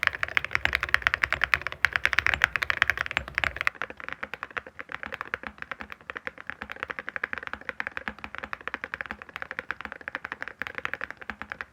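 Fast, continuous typing on a mechanical keyboard fitted with full-metal keycaps: a dense stream of hard clacks. About four seconds in, the sound abruptly turns quieter and thinner, as if switching to a different keyboard.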